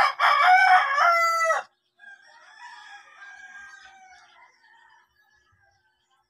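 A rooster crowing once, loud, about a second and a half long at the start, followed by fainter bird calls further off that die away around five seconds in.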